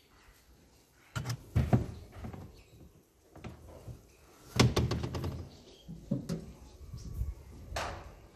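Irregular knocks and thumps from a small hatchback's boot and tailgate being handled, a few separate bumps, with a loud slam right at the end.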